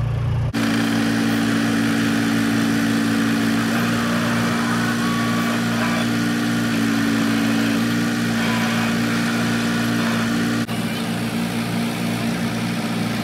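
John Deere 455E crawler loader's diesel engine running steadily under load, its pitch shifting slightly a few times.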